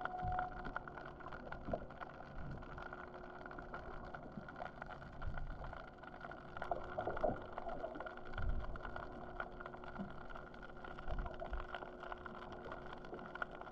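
Muffled underwater sound from a GoPro in its housing: a steady machinery hum, with a few dull thumps and knocks.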